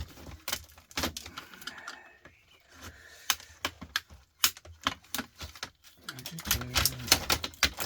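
Irregular sharp clicks and clatter of hard plastic parts as a dishwasher control panel housing is pried apart to get at the circuit board.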